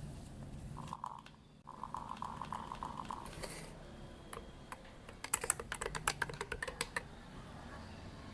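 A short pulsing buzz, then about two seconds of rapid light clicking with a slight ring.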